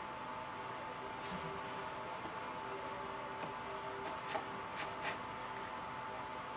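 A few small sharp clicks of plastic connectors and wires being handled, most of them between about four and five seconds in, over a steady faint hum.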